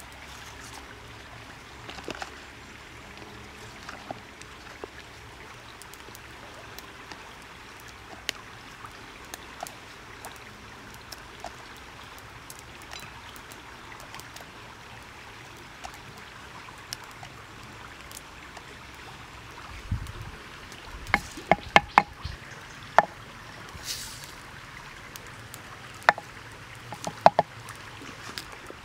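Hands handling ingredients over a wooden mortar: scattered small clicks as chilies and garlic are broken up, then a run of sharp light knocks and clicks about two thirds of the way in and again near the end as they are dropped into the mortar, over a faint steady background hiss.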